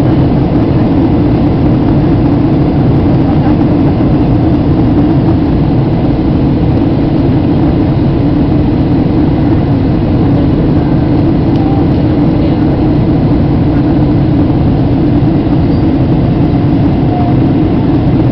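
Steady, loud cabin noise inside a Boeing 737-800 seated by the wing during descent: the drone of its CFM56-7B turbofan engines and rushing air, heaviest in the low end and unchanging throughout.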